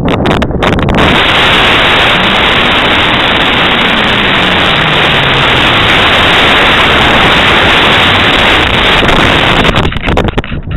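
Loud, steady rush of air over a small rocket-mounted camera's microphone in flight. It starts about a second in and eases near the end.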